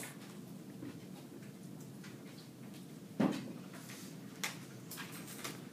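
Quiet classroom room tone with a steady low hum, broken by a single sharp knock about three seconds in and a couple of fainter clicks after it.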